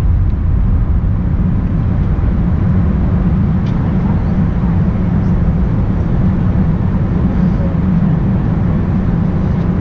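Steady cabin noise inside an Airbus A380-841 descending on approach: a constant low rumble of airflow and engines through the fuselage, with no changes.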